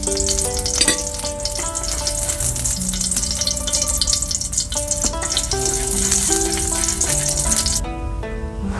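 Food sizzling and crackling as it fries in a pan, under calm background music with a simple stepping melody. The sizzle cuts out about eight seconds in while the music goes on.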